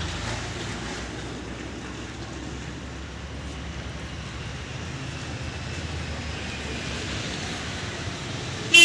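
Steady low rumble of road traffic, with a short vehicle horn toot near the end.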